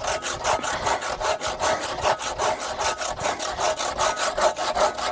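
Large hand saw cutting through wood in quick, even back-and-forth strokes, several a second, with a ringing note from the blade.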